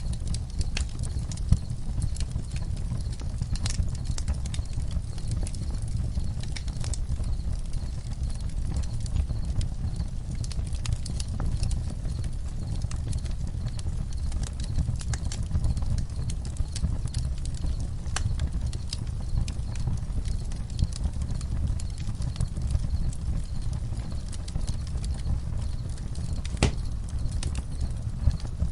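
Campfire crackling: scattered sharp pops and snaps, one louder pop near the end, over a steady low rumble of burning.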